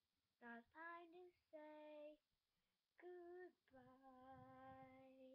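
A young girl singing a short tune of about five notes, the last one held for nearly two seconds.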